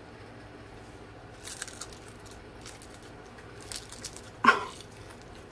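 Crispy skin of a whole roasted chicken crackling: a few faint crackles, then one louder crunch about four and a half seconds in.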